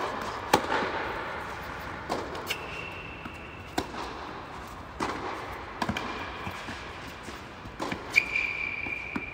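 Tennis rally on an indoor hard court: a series of sharp pops of rackets striking the ball and the ball bouncing, each with an echoing tail. Two long high-pitched squeaks, one about two and a half seconds in and a louder one near the end.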